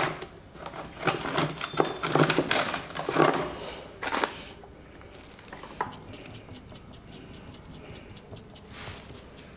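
Scraping and scrubbing strokes of a cleaning tool against a BGA chip as it is cleaned during reballing. They are loudest in the first few seconds, with one sharp scrape about four seconds in, then turn to faint light clicking.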